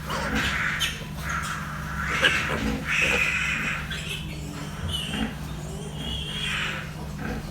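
Piglets squealing: about six separate squeals, each half a second to a second long, over a steady low hum.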